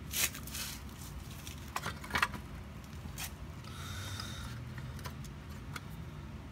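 Light handling noises from a small engine's spark plug and cylinder head: a short scrape just after the start, then a few sharp metallic clicks about two and three seconds in, and fainter ticks later.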